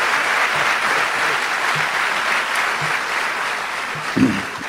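Audience applauding, steady clapping that fades away in the last second or so, with a low thump about four seconds in.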